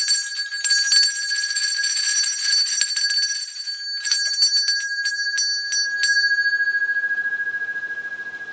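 Small handheld metal bell, kept as a call bell for summoning help, shaken rapidly for about four seconds, then struck a handful of separate times; the last stroke, about six seconds in, is left to ring out and fades slowly with a wavering tone.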